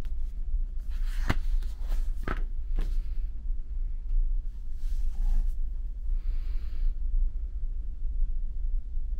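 Steady low drone of a ferry's engines heard aboard the ship, with three sharp knocks in the first three seconds.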